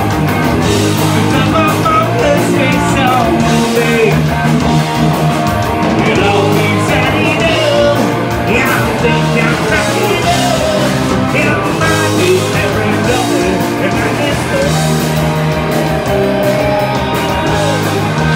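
Live rock band playing loud, with electric guitar and a man singing into a microphone.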